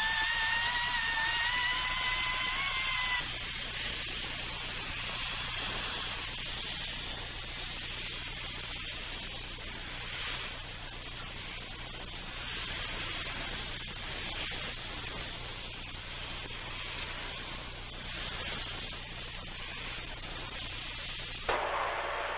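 Air-powered grinder cutting into stone. For the first three seconds there is a high whine that rises slightly. After that comes a steady high hiss of grinding and exhaust air, which stops abruptly near the end.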